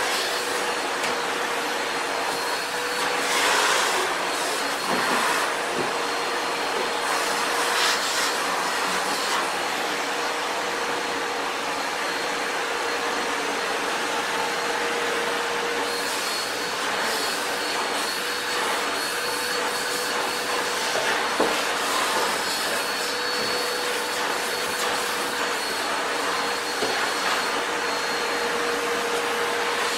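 Sebo Felix vacuum cleaner running below full power: a steady rush of air with a constant motor whine, and a few brief louder surges of suction noise along the way.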